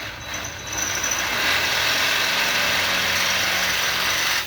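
Electric power drill running steadily, then cutting off sharply, as it drills through the workpiece.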